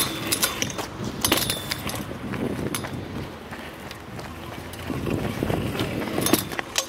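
Stunt scooter wheels rolling over paved ground, a steady rolling rumble with a few sharp clicks and knocks from the scooter.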